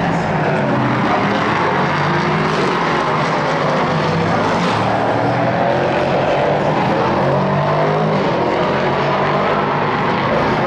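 Prototype race cars lapping a circuit, their engines running at high revs with the engine note rising and falling as they accelerate and brake.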